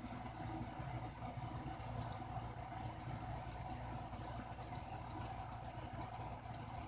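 Light, irregular clicking of computer controls, several clicks a second starting about two seconds in, over a steady low hum.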